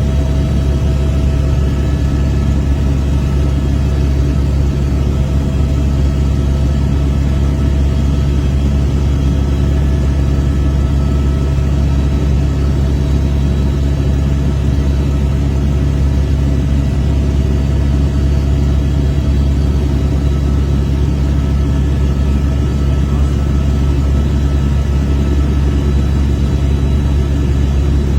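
Helicopter in flight: a loud, steady low drone of engine and rotor with a few constant whining tones over it.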